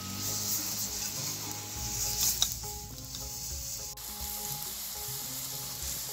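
Water boiling in an aluminium wok over a wood fire, with a metal spatula stirring small round eggplants in the pan: a steady bubbling hiss, with one sharp tap about two and a half seconds in.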